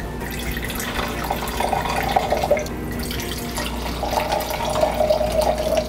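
Red wine poured from a bottle into two wine glasses in turn: two pours of liquid splashing and filling the glass, the second one longer.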